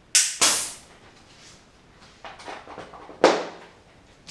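Short hissing bursts of air as a tubular bicycle tire is pumped up toward about 8 bar: two close together at the start, then a louder one about three seconds in.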